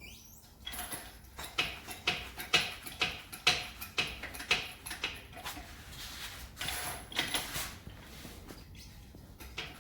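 Hydraulic stand being pumped up under the front suspension ball joint: a creaking pump stroke about twice a second, then a longer rasping noise about two thirds of the way through.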